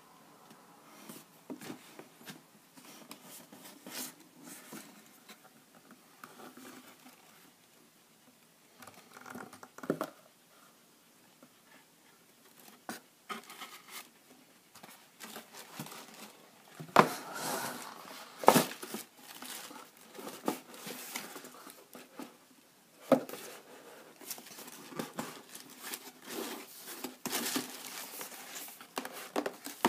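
Cardboard shoebox being handled and opened, the lid sliding and coming off, with tissue paper rustling and crinkling inside. Irregular rustling and small clicks, with a few sharp knocks of cardboard, the loudest in the second half.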